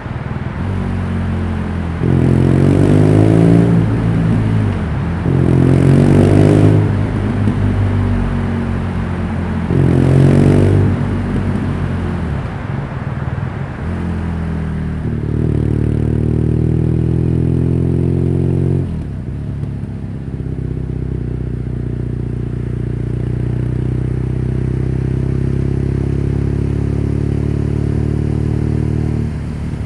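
BMW R nineT's 1170 cc air/oil-cooled boxer twin running, blipped up three times in quick revs and dropping back to idle between them. About fifteen seconds in it is held at a raised, steady speed for a few seconds, then drops back to a steady idle.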